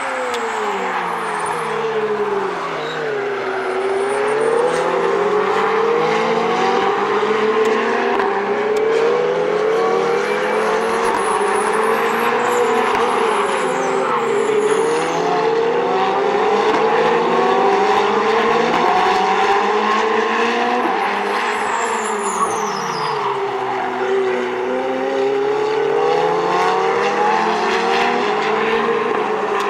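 Ferrari 458 and 488 Challenge race cars' V8 engines running hard on track, several at once. Their pitch climbs through the gears and drops on lifts and downshifts, over and over. Brief high squeals ride over them now and then, one falling in pitch a little past two-thirds of the way through.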